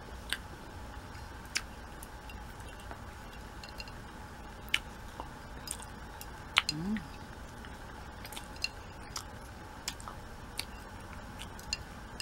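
Metal cutlery clicking and scraping against a ceramic plate while the last cake crumbs are gathered up: sharp single clicks every second or so, unevenly spaced. A short rising hum from the eater a little past halfway.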